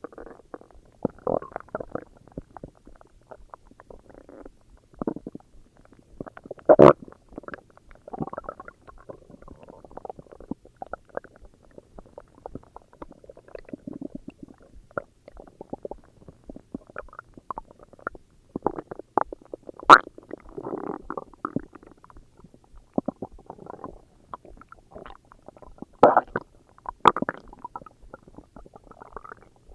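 A person's stomach growling: irregular gurgles and rumbles, with a few louder, sharper gurgles scattered through.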